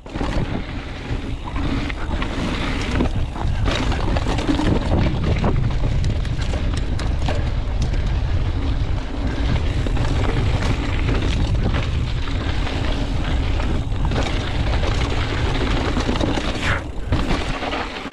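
Mountain bike descending fast on dry, rocky dirt single track: a steady, loud rumble of wind on the microphone and tyres on the trail, with frequent short knocks and rattles from the bike running over rocks.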